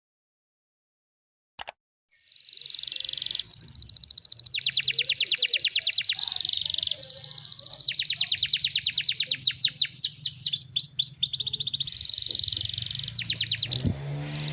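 Canary singing long, tight trills of very fast repeated notes, the rapid 'tembakan rapat' song used as a training recording for other canaries. The song comes in after about two seconds of silence and a single click.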